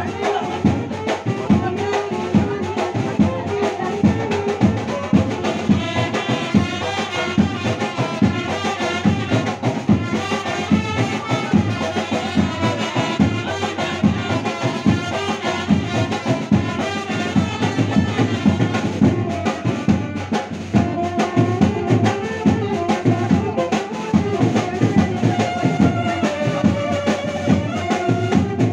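Music with brass and a steady drum beat.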